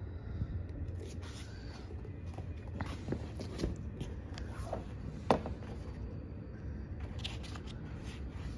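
Hands handling a hardcover omnibus volume: soft rubbing and light knocks of the boards and pages as the book is taken from its slipcase and opened, with one sharp tap about five seconds in.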